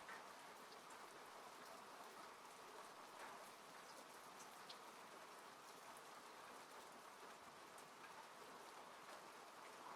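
Rain falling on a car, heard from inside: a faint, steady hiss of rain with scattered single drops ticking on the body and glass.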